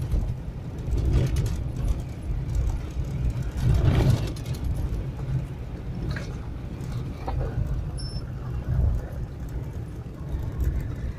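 Car driving over a rough dirt track, heard from inside the cabin: a low, uneven rumble of engine and road noise, with a louder thump about four seconds in.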